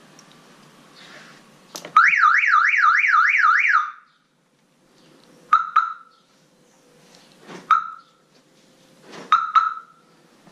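Car alarm siren sounding a fast up-and-down warble for about two seconds after a click, then cutting off suddenly. It is followed by short alarm chirps: two single ones a couple of seconds apart, then a quick double chirp.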